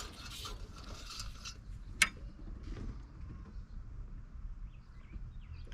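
A single sharp click about two seconds in, over a faint background rumble, with faint chirps near the end.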